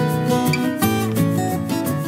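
Background music played on acoustic guitar, a run of plucked notes.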